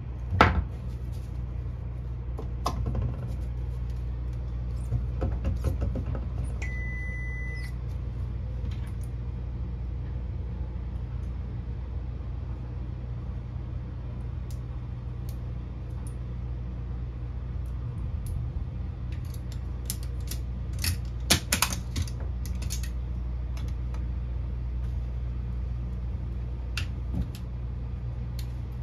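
Small clicks and handling sounds from splicing optical fiber: fiber holders, the cleaver and the fusion splicer's lids being worked, over a steady low hum. A single electronic beep about 7 s in, typical of a fusion splicer signalling a finished step, and a quick run of sharp clicks around 21 s.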